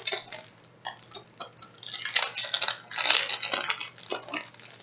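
A sticker pack's packaging crinkling and rustling in the hands as it is opened, with irregular clicks and crackles, busiest in the middle.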